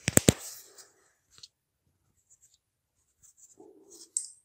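Three sharp clicks in quick succession right at the start, then faint handling noise and one more click near the end.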